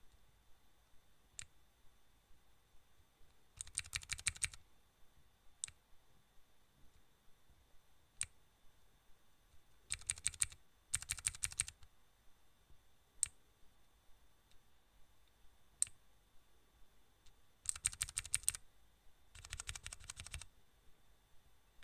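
Five short runs of rapid clicking, each lasting about a second, with single clicks scattered between them, over a faint steady high-pitched whine.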